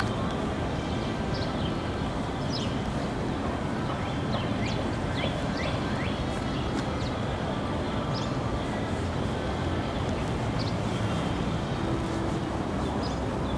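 Short, high bird chirps, scattered about a dozen times and clustered a few seconds in, over a steady low background rumble.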